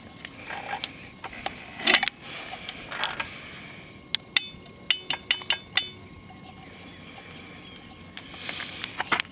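Irregular knocks and clicks, with a quick run of sharp, ringing metallic clinks about four to six seconds in.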